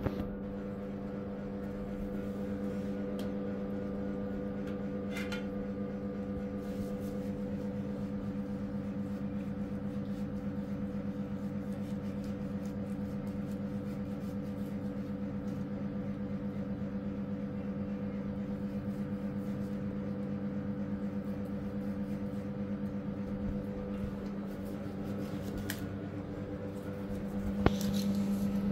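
Steady mechanical hum from a running motor or appliance, low and even, louder in the last second or two. A few light clicks come from raw chicken pieces being handled on a metal tray.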